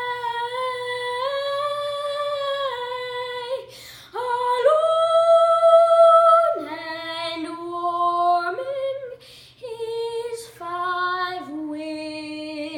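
A boy singing solo and unaccompanied in a high treble voice, holding long sustained notes. After a short breath about four seconds in, the melody climbs to a long high note and then steps down to lower notes toward the end.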